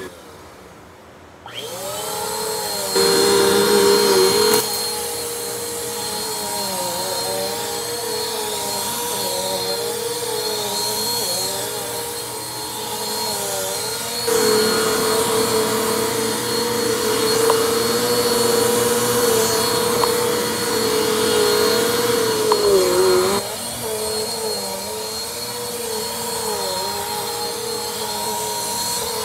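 Bissell PowerForce Compact upright vacuum switched on about a second and a half in, its motor spinning up and then running steadily while it is pushed back and forth over a rug. The motor's hum wavers in pitch with the strokes and grows louder for two stretches, briefly a few seconds in and for about nine seconds in the middle.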